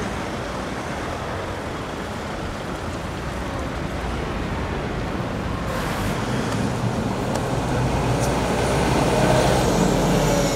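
City street traffic noise that grows steadily louder as a city bus approaches and passes close by near the end, its engine rumbling, with a faint high squeal in the last few seconds.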